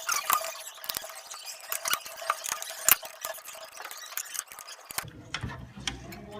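Irregular metal clicks and taps of a wrench on the blade's arbor bolt on a DeWalt DW713 mitre saw, the bolt being tightened with the spindle locked. Duller handling noise joins about five seconds in.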